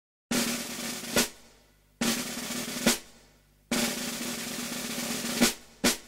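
Snare drum rolls on the soundtrack: three rolls, each closing on a sharp accented hit, with a short extra hit near the end.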